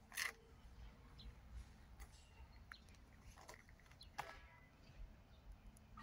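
Near-silent outdoor ambience with faint short bird chirps and a few scattered sharp clicks, the loudest about a quarter of a second in.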